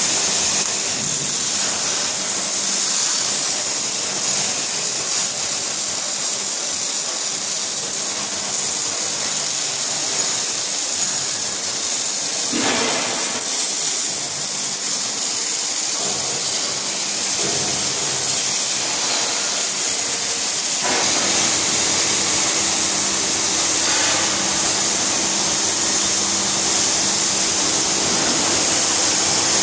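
Steady industrial machinery noise: a strong high hiss over a few low, even hum tones. The hum changes in pitch about two-thirds of the way through.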